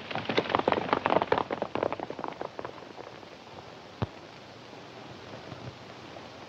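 Hoofbeats of horses galloping away, a rapid clatter that fades out over the first two and a half seconds. A single sharp click comes about four seconds in, then only a faint steady hiss.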